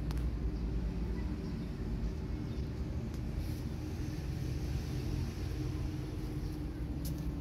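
Steady low rumble with a faint steady hum, vehicle-type background noise, with a brief click just after the start and another near the end.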